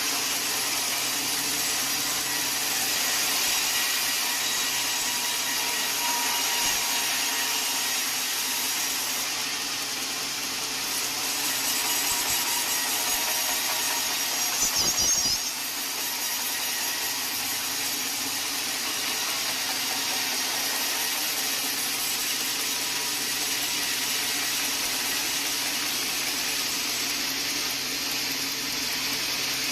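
Sawmill saw running steadily as it cuts through a log, a continuous hissing whine, with a brief louder surge about halfway that cuts off sharply.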